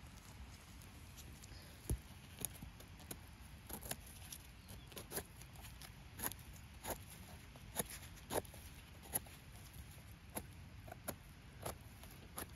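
A knife paring and slicing the firm stem of a porcini mushroom, trimming it to check for worms: short, crisp cuts at irregular intervals, starting about two seconds in.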